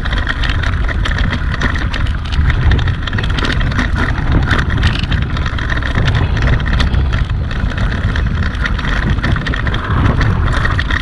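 Wind rushing over the microphone of a camera on a mountain bike as it rolls along a rough, stony dirt trail: a steady low rumble with frequent small rattles and knocks from the bumps.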